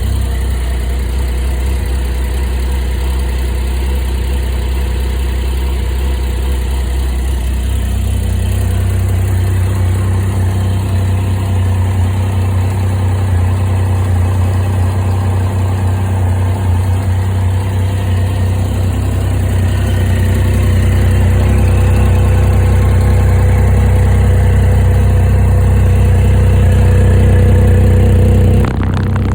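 Triumph Street Triple 675's 675 cc inline three-cylinder engine running on its stock exhaust. The note steps up about eight seconds in, swells slowly louder in the second half, then drops back abruptly near the end.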